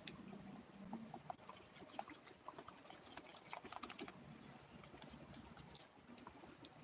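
Faint, irregular small clicks and ticks, several a second, over a low steady hum.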